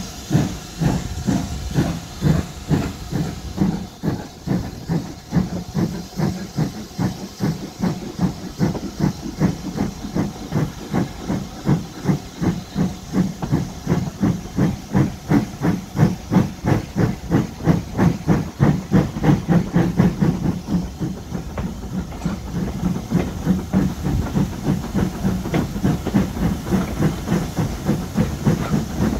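Steam locomotive working hard, its exhaust beating in a steady rhythm of about two to three chuffs a second, with a constant hiss of steam between the beats.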